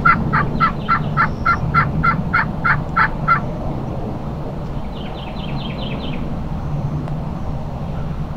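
Wild turkey yelping: a run of about a dozen evenly spaced yelps, about four a second, that stops about three and a half seconds in. A shorter, higher, quicker series of notes follows about five seconds in, over a steady low hum.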